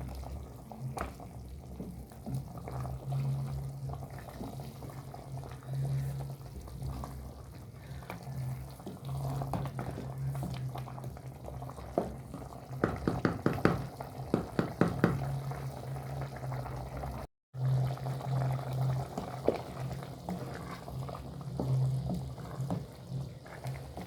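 A cooking pot boiling, the water bubbling steadily over a constant low hum, with a quick run of sharp clicks about halfway through.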